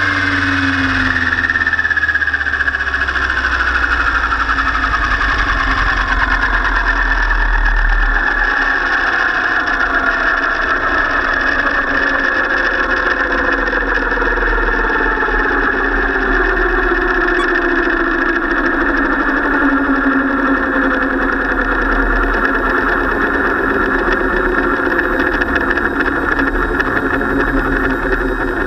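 700-size radio-controlled helicopter running in flight, heard close up from its onboard camera: a steady drone of rotor and drivetrain, with several whining tones sliding slowly down in pitch through most of the stretch.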